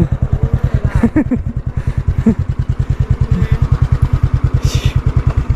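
Motorcycle engine running at low revs with an even low beat of about ten pulses a second.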